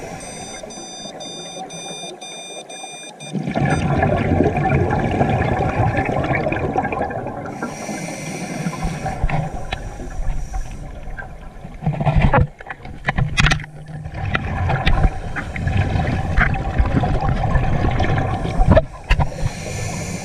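Scuba regulator breathing heard underwater: the short hiss of an inhale through the demand valve, then a long rush of exhaled bubbles, repeating twice. A string of short high beeps sounds in the first few seconds, and a few sharp knocks fall about midway.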